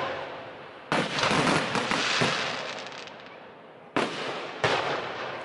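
Aerial fireworks shells bursting: a sharp bang about a second in, followed by a patter of crackling, then two more bangs close together near the end. Each bang trails off slowly over a second or more.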